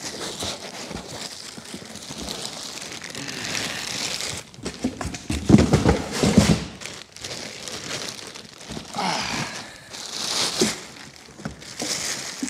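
Plastic packaging wrap crinkling and rustling as a machine is lifted from a cardboard box and unwrapped, with louder rubbing and knocks from the cardboard box about halfway through.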